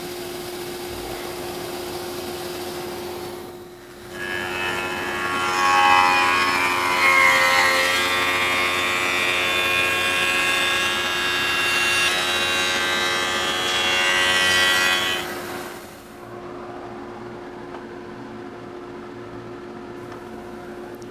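Ritter R30 sticking-station shaper spindle, 5 hp and 1¼-inch at 8600 RPM, running free with a steady hum. About four seconds in, the cutter starts cutting the sticking profile along a template-guided cathedral-arch rail: a louder whine whose pitch shifts through the cut. After about eleven seconds the cut ends and the spindle goes back to running free.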